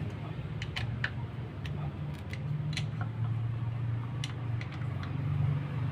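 Honda Beat scooter's small single-cylinder engine running at idle, a steady low hum, with scattered light clicks and ticks over it.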